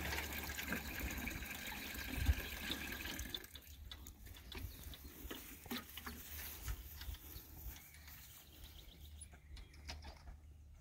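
Water pouring steadily onto garden soil as newly planted sweet corn is watered; the flow stops about three and a half seconds in, leaving only faint scattered clicks and rustles.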